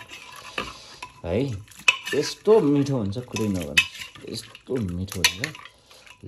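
Metal ladle stirring a stew in an aluminium pot, knocking and clinking against the pot's sides several times.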